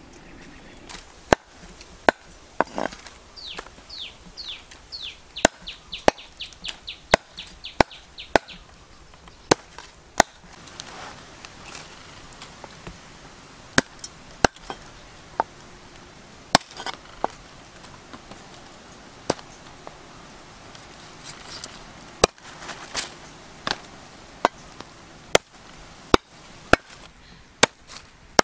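A cleaver chopping raw chicken on a wooden chopping block: sharp, separate strikes, roughly one a second, irregularly spaced. Early on, a bird calls in a quick run of short falling notes for several seconds.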